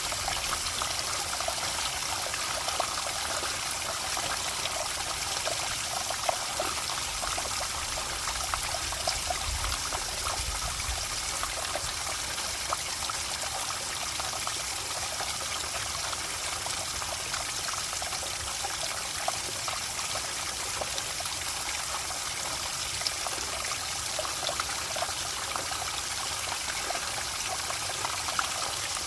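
Water trickling steadily, a running stream with a busy, even patter of small splashes.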